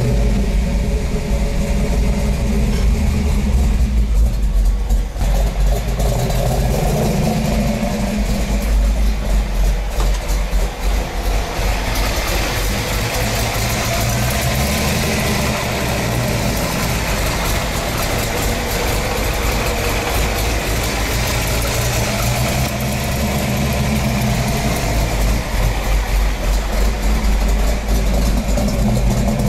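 Ford Mustang Shelby GT500 'Eleanor' V8 engine revving hard as the car spins its rear tyres in doughnuts, with tyre squeal. The tyre noise grows louder about twelve seconds in.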